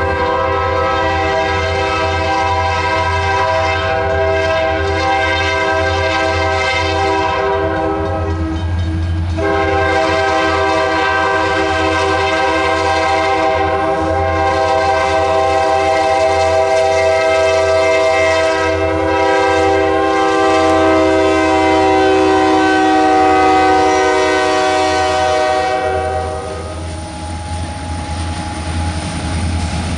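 Norfolk Southern diesel locomotive sounding its multi-tone air horn in long blasts, a chord of several notes, as it approaches a road crossing: the warning signal for the crossing. The horn breaks briefly about a third of the way in and stops near the end, leaving the low rumble of the locomotive and the passing freight cars.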